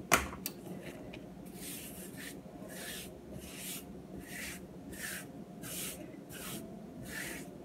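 A click at the start, then hands working flour over dough on a kitchen counter: about nine brisk rubbing swishes, evenly spaced at roughly one and a half a second.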